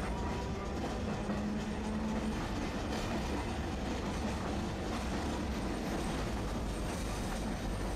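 Tosaden streetcar running along street track, heard from inside the cab: a steady rumble of wheels on rails, with a brief low hum a little over a second in.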